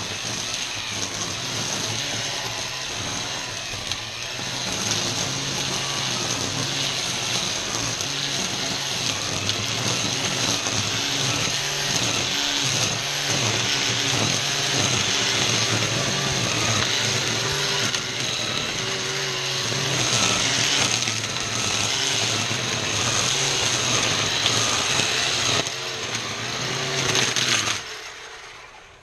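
ECHO 58-volt battery string trimmer running at speed, its line cutting through tall weeds and grass, with a steady motor whine. Near the end the sound drops away for a moment as the motor winds down.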